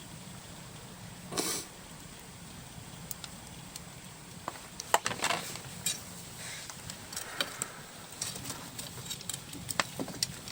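Wood bonfire crackling, with irregular sharp pops and snaps over a low steady hiss. The pops grow more frequent after about five seconds.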